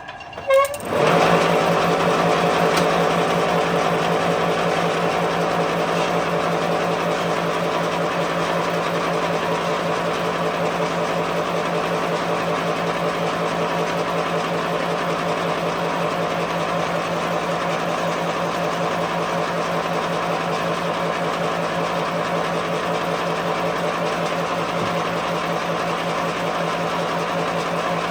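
A workshop machine starts up, its pitch rising quickly about half a second in, then runs with a steady hum.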